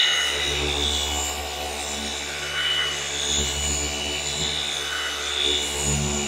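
Flex FX3331 24V cordless gear-driven orbital polisher running steadily, its foam pad buffing polish on a car's painted hood, with an even motor hum.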